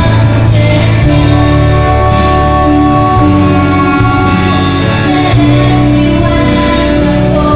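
Live worship band playing a slow song, carried by held organ-like keyboard chords that change every second or so over strong low notes.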